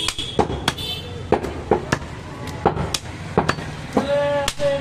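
Butcher's blades chopping goat meat on wooden chopping blocks: about a dozen sharp, irregular knocks, with a voice near the end.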